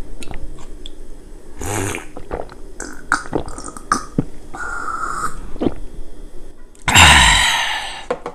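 A shot of soju being sipped and swallowed, with small mouth and throat noises, then a loud, breathy exhale after the shot near the end, the loudest sound.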